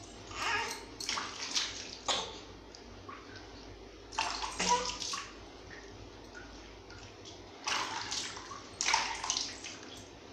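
Water being poured and splashed over a baby's head and face during a bath, in several short splashing bursts with quieter gaps between them.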